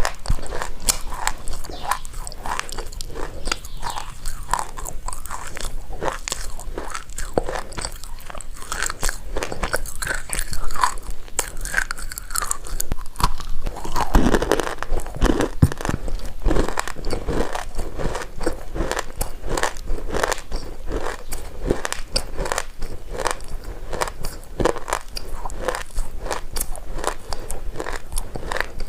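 Baked loess subsoil being bitten and chewed, a continuous dry crunching with louder, deeper crunches around the middle.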